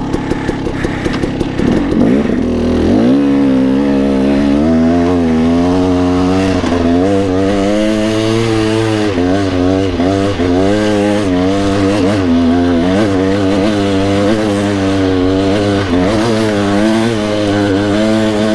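A 2016 KTM 300 XC-W's single-cylinder two-stroke engine, with an aftermarket expansion-chamber pipe, revving under load on a muddy climb. About two to three seconds in, the revs climb, then keep rising and falling as the throttle is worked, with a short dip near the end.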